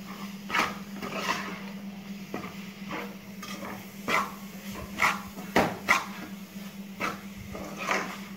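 Steel spoon scraping and knocking against a steel pan while stirring a thick, sticky coconut-and-jaggery burfi mixture as it comes together. The strokes are sharp and irregular, about one a second, over a steady low hum.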